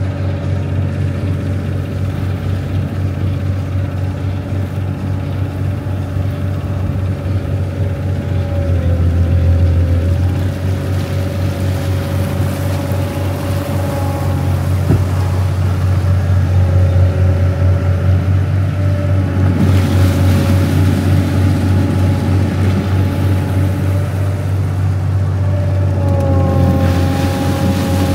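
A river cruise boat's engine running under way, a steady low drone with a fainter wavering whine above it. A rushing hiss of water or wind swells about twenty seconds in.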